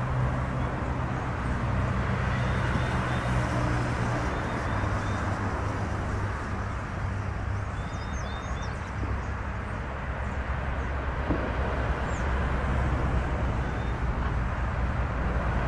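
Steady rumble of passing motor traffic, with a low engine hum that swells and fades, and a few faint, short, high chirps over it.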